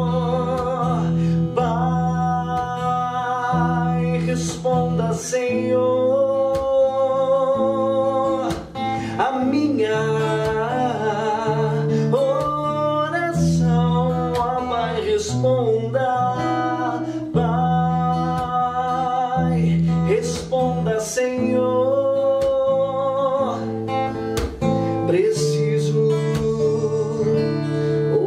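Music: a man singing a slow worship song to his own strummed acoustic guitar.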